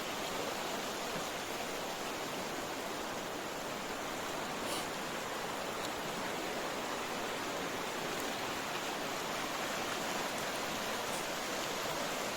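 River water rushing steadily over its bed, an even, unbroken hiss of flowing water.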